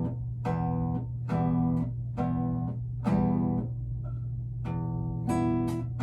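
Slow single notes plucked on a string instrument, roughly one a second, each starting sharply and ringing away, as in a beginner method-book exercise. A steady low hum runs underneath.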